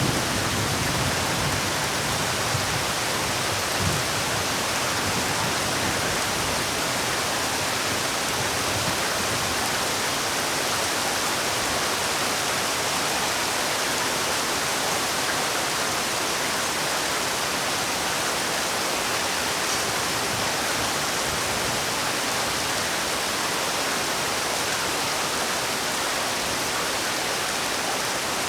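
Steady, heavy rainfall, an even hiss of rain with no let-up.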